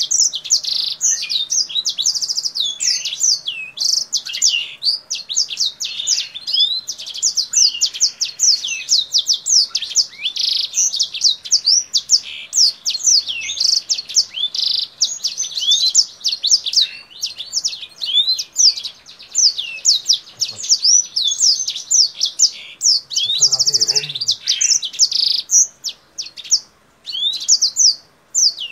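A caged kingthroat, a finch kept as a songbird, sings continuously in a long, fast run of quick sweeping whistled notes, pausing briefly near the end.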